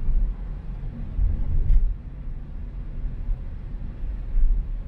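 Low, uneven rumble of a car driving, with a faint click about a second and a half in.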